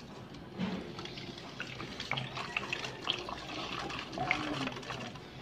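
Green engine coolant pouring from a jug into a cut-off plastic bottle used as a funnel, the stream splashing into the liquid already in the bottle. This is the cooling system being refilled with coolant after a flush.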